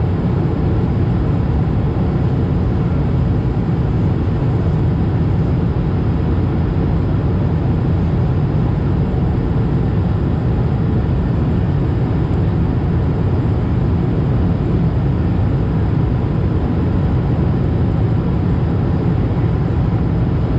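Steady in-flight cabin noise of an Airbus A220-300: an even, deep rumble of airflow and its Pratt & Whitney PW1500G geared turbofan engines, heard from a window seat.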